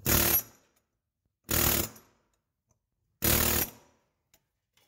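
Pneumatic air chisel hammering in three short rattling bursts, about a second and a half apart, against a hex on the 7.3L Powerstroke's 36 mm fan nut to knock it loose counterclockwise.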